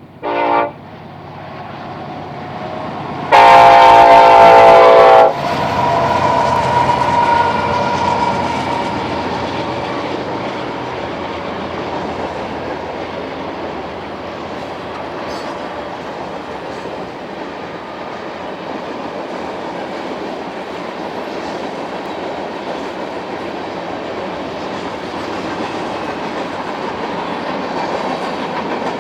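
A freight train's lead locomotive, an EMD SD70ACe, sounds its multi-chime horn: one short blast at the start, then a long loud blast of about two seconds a few seconds in. After that the train rolls past with a steady rumble and the clickety-clack of wheels over rail joints.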